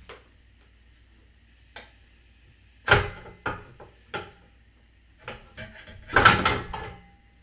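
Knocks and clatters from a glider chair's metal rocking mechanism being handled while its shipping zip ties are cut free with a box cutter. A loud knock comes about three seconds in, then several lighter ones, and a longer clatter about six seconds in.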